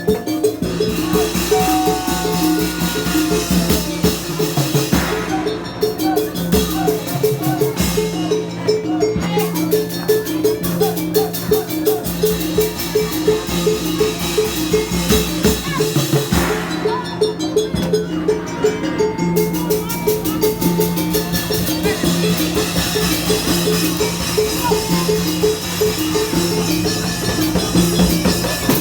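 Obrog street-music ensemble playing loud music led by drums and percussion, with a steady beat of about three strokes a second and a melody line above it.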